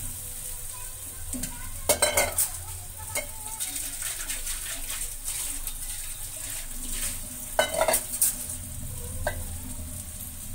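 Vegetables and masala sizzling in a metal kadhai over a gas flame, with a steady hiss. A metal spatula scrapes and clanks against the pan in short bursts, about two seconds in and again around eight seconds.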